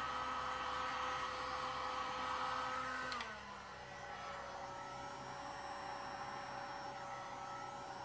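A 2000 W electric heat gun's fan motor running steadily with a whirring hiss. About three seconds in it clicks, its pitch slides down and it goes quieter, and a lower steady hum carries on after.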